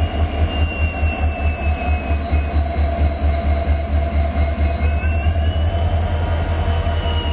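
Train running on the rails: a heavy low rumble, with thin, high-pitched wheel squeals sliding slowly up and down in pitch.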